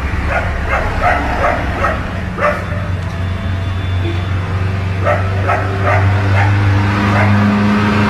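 A dog barking in quick short barks, about two or three a second, for the first couple of seconds and again briefly about five seconds in, over a steady low hum.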